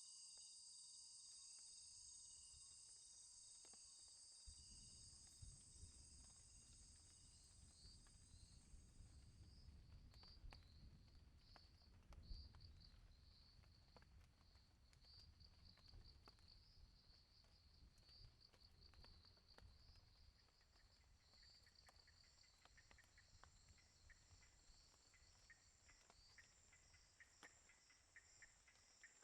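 Faint chorus of insects, crickets among them. Several steady high trills change about ten seconds in to a rapid pulsing chirp, and a lower pulsing chirp joins in past the two-thirds mark. A soft low rumble runs under the middle part, with scattered faint ticks.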